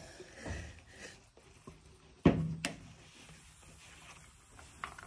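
Two sharp knocks about a third of a second apart, a little over two seconds in, amid quiet rustling.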